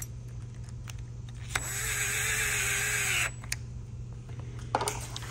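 Cordless drill spinning in a bolt on a locking hub's cover, the motor whirring for about a second and a half, starting about a second and a half in and stopping abruptly. A few light clicks follow.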